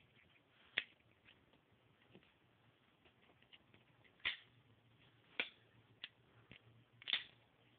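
Gerber Obsidian folding knife clicking as it is worked: several sharp, separate clicks, a few seconds apart at first and then about a second apart.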